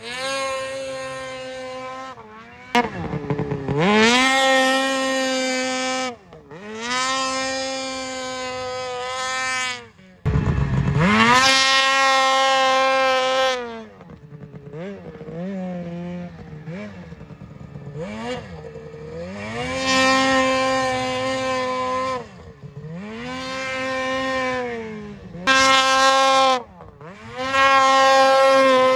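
Ski-Doo 600 RS race snowmobile's two-stroke engine revving to full throttle again and again for wheelies. Each surge climbs quickly to a steady high pitch and holds for one to four seconds, with the revs dropping and wavering between surges.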